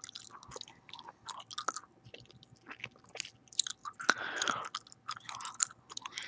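Gum chewing right up against the microphone: irregular wet smacks and clicks of lips, tongue and gum, with a longer, louder rush of mouth noise about four seconds in.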